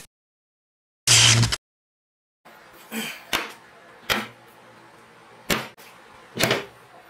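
A short loud burst ends the intro, followed by dead silence. Then, over faint room tone, flat steel plates are set down and handled on a metal-topped workbench, giving five sharp metallic knocks spread over the last few seconds.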